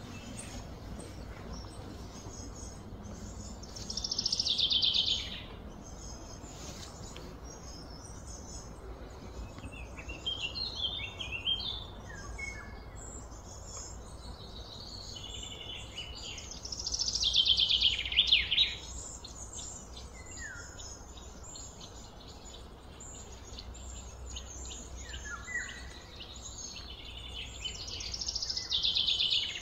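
Songbirds singing and chirping, with loud song phrases near the start, in the middle and at the end, over a steady low background rumble.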